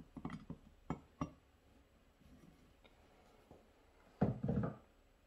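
Light metallic clicks and knocks as a screwdriver works on a Rochester 4GC carburetor body and small parts are handled on a workbench. There are a few short clicks in the first second or so, then a louder cluster of knocks about four seconds in.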